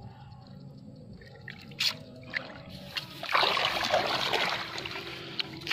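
A large hooked patin (Pangasius catfish) thrashing in shallow water, splashing loudly for a second or so starting about three seconds in, after a couple of short sharp splashes.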